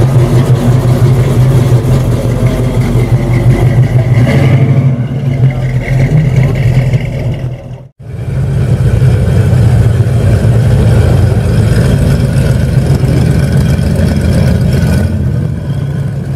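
Loud, deep rumble of a classic car's engine running, steady and throbbing at idle. The sound cuts out abruptly for an instant about eight seconds in, then an engine rumbles on steadily again.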